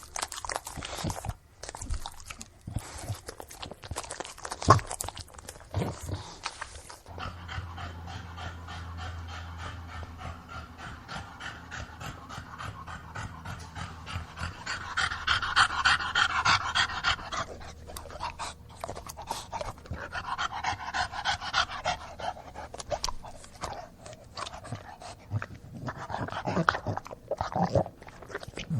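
English bulldog panting and breathing heavily in repeated rhythmic breaths, with grunting. The first several seconds are broken by a run of short clicks.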